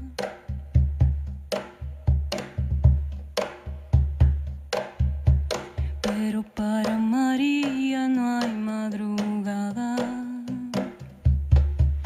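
Cajón played with bare hands: deep bass thumps and sharper slaps in a steady pattern, about two or three strikes a second. About halfway through, a woman's voice takes over with a long sung melodic line while the drumming thins out. The cajón strikes come back near the end.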